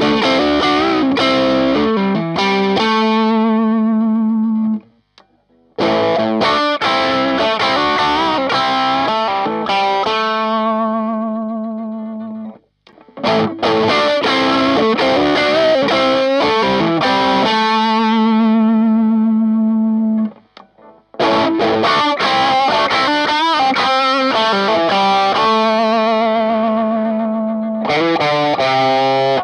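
Electric guitar played through IT11 Audio Honk Machine overdrive pedals, a Tube Screamer-style overdrive. It plays distorted phrases of chords and single notes, each ending in a held note with vibrato that fades out, with short breaks about five, thirteen and twenty-one seconds in.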